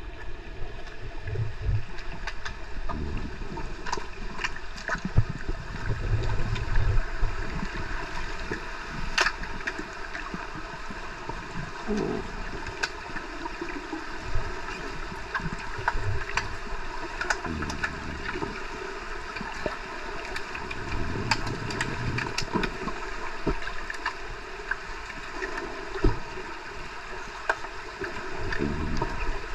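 Underwater sound inside a pool during an underwater hockey game: a steady hiss and hum, with sharp clicks and knocks scattered throughout and low rumbling swells of churning water every few seconds.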